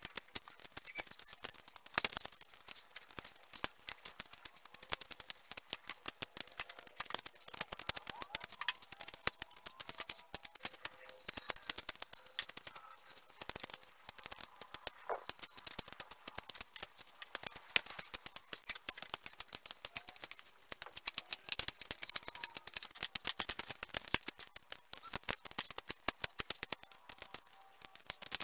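A knife whittling the end of a tree branch being shaped into an axe handle, shaving off wood in rapid, uneven scraping and clicking strokes.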